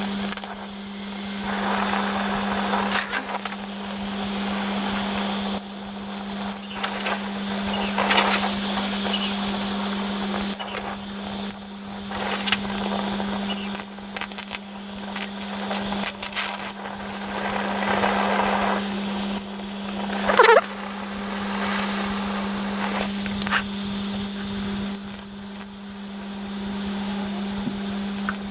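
Arc welding on the thin sheet-metal flange of an EGR cooler, in short runs a few seconds long that start and stop, over a steady hum, with a few sharp clicks between runs.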